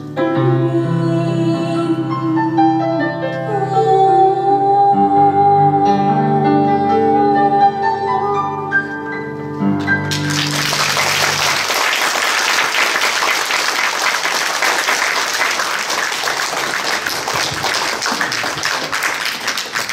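A woman sings the last held notes of a slow ballad over sustained grand piano chords. The music ends about ten seconds in, and a concert audience breaks into steady applause that runs on to the end.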